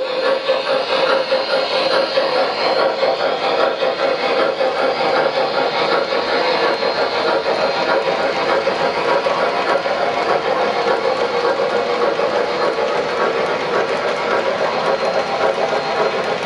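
O-gauge model freight train of refrigerator cars rolling past on metal track: a steady, dense clatter of small metal wheels running over the rails.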